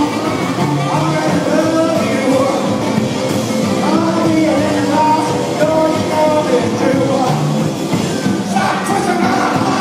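Rockabilly band playing live: upright bass, drums, electric guitar and saxophone, with a vocal.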